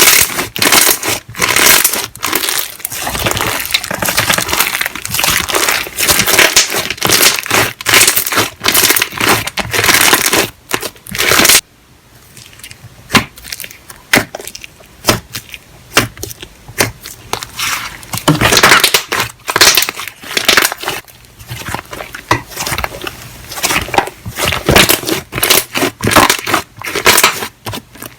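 Slime being squeezed and pressed by hand, giving a dense run of quick clicks and pops. It goes quieter for several seconds about twelve seconds in, then picks up again.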